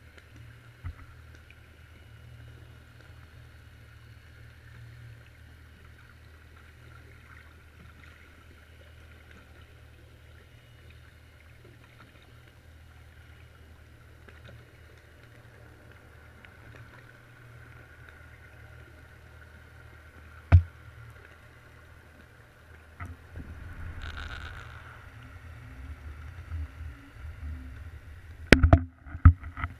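Underwater ambience recorded by a camera in a waterproof housing: a steady low hum. About two-thirds through there is one sharp knock, and near the end a run of bumps and loud knocks as the housing is jostled on its line.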